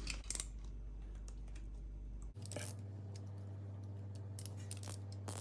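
Scattered sharp clicks and ticks of hand tools working on metal as a very tight Phillips bolt and its nut are worked loose on the oven's convection fan motor bracket.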